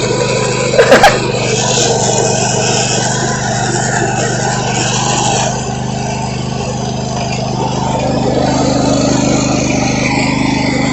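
Riding lawn mower engine running steadily close by, with a cluster of loud knocks about a second in and the engine note growing slightly stronger near the end.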